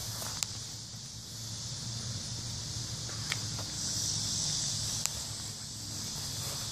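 Insects buzzing steadily, with a steady low hum underneath and a few sharp clicks.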